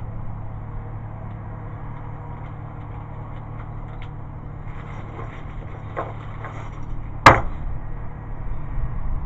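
Small clicks of handling gear at a shooting bench, then one sharp, loud crack a little after seven seconds in, over a steady low background rumble.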